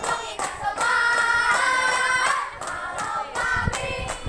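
A group of children singing and chanting a scout cheer (yel-yel) in unison, with hand claps.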